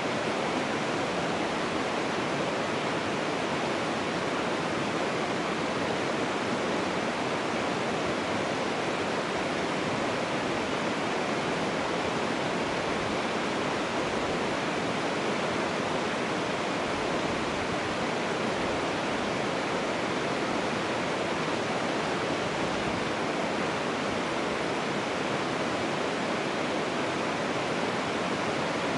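Steady, unbroken rushing of flowing creek water.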